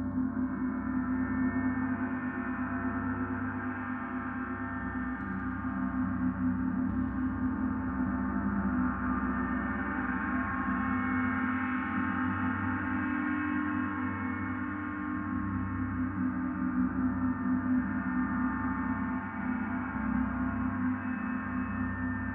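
Gong bath: a played gong sustaining a dense wash of many overlapping ringing tones, no single strike standing out, swelling and easing gently.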